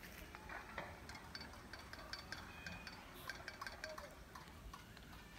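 Quiet outdoor ambience with scattered faint light clicks and a few brief, high chirps.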